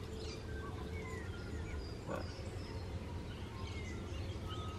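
Bush ambience: a low steady rumble with scattered short bird chirps, and one brief sound about two seconds in.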